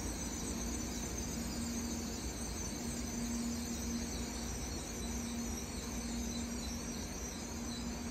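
Steady rail-yard noise: a low hum that swells and fades every few seconds, with a faint high whine above it and a low rumble beneath.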